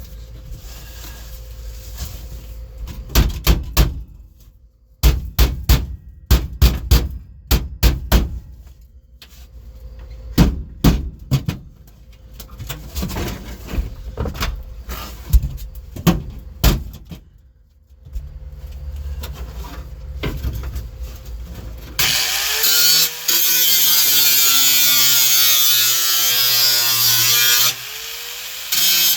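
Hammer striking the sheet-steel floor pan of a 1974 Chevrolet Nova, a long series of sharp knocks, then an angle grinder running loudly for the last several seconds, its pitch wavering as it bears on the metal.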